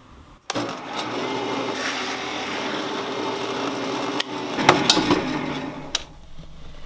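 Drill press running with its twist bit boring a hole through thick plywood; it starts suddenly about half a second in and drills steadily for about four seconds, followed by a few sharp cracks and knocks about a second later.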